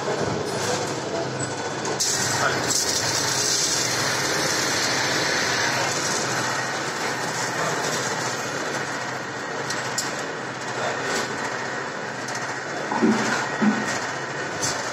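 Belt-driven maize sheller (rated 1,000 kg per hour) running steadily with corn passing through, a dense mechanical rattle, with a couple of short knocks about thirteen seconds in.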